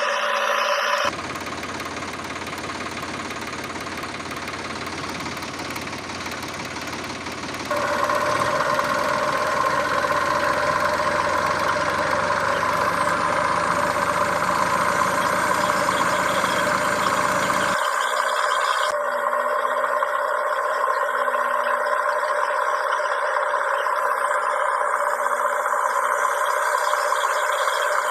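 Steady motor running sound with a constant mid-pitched whine. Its character changes abruptly several times, about a second, eight seconds and eighteen seconds in.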